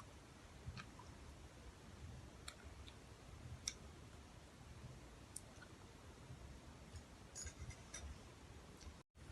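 Faint, scattered mouth clicks and soft chewing from someone eating instant noodles, over near silence. There is a cluster of clicks a little before the end, then the sound cuts out completely for a moment.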